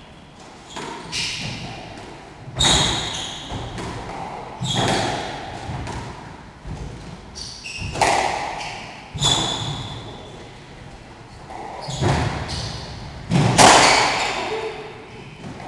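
Squash rally: the hard rubber ball cracks off the rackets and walls about every one to two seconds, each hit echoing around the court, with short shoe squeaks on the wooden floor between shots. The loudest hit comes near the end, as the rally finishes.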